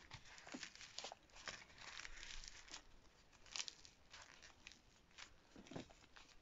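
Flossy clay mixed with tiny foam beads being torn apart and squeezed by hand: faint, irregular crackling and soft tearing.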